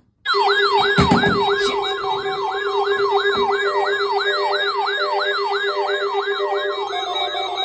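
Electronic alert siren sweeping up and down about three times a second over a steady low hum, with a couple of knocks about a second in.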